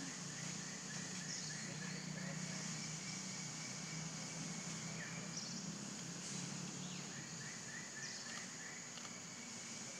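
Outdoor ambience: a steady high-pitched insect drone, with a run of quick repeated chirps about a second and a half in and again about seven seconds in, over a low steady hum.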